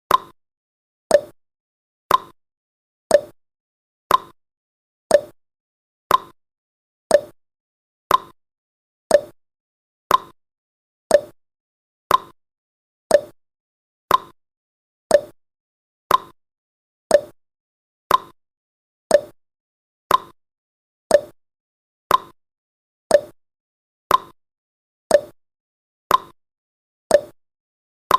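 Countdown timer's tick sound effect: one short, sharp tick every second, each dying away quickly, in an even clock-like rhythm.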